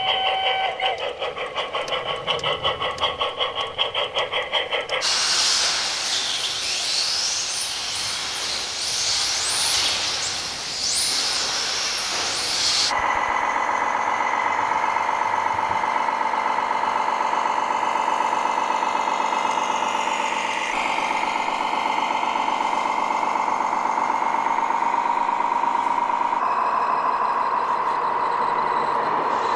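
A model steam locomotive chuffs in a rapid even rhythm for the first few seconds. Then comes several seconds of hissing. From about halfway through, an RC model truck's sound module plays a diesel engine running steadily, a buzzy hum that shifts slightly a couple of times.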